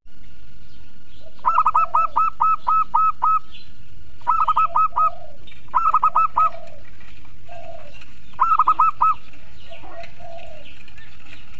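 Local zebra dove (perkutut) singing its staccato cooing song: four bouts of quick, evenly spaced high coos, the first of about eight notes and the rest shorter, each trailing off into lower notes.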